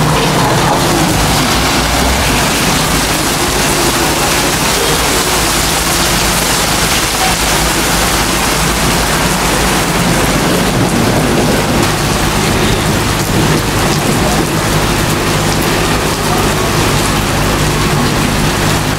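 Rain falling steadily on a wet street, an even loud hiss with a faint steady low hum beneath it.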